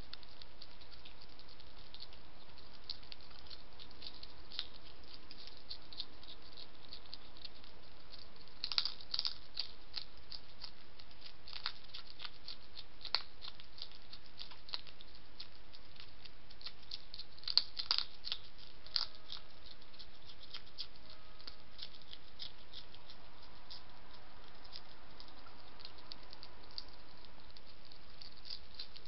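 A European hedgehog chewing and crunching food with its snout in a ceramic dish: a continual stream of small, crisp clicks, with louder clusters about nine seconds in and again around eighteen seconds, over a steady background hiss.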